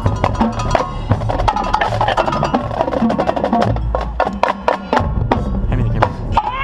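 Marching band percussion section playing a busy passage of rapid, sharp drum and wood-block-like strikes over sustained band chords.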